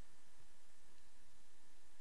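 Steady, faint hiss of background noise with no distinct sounds in it.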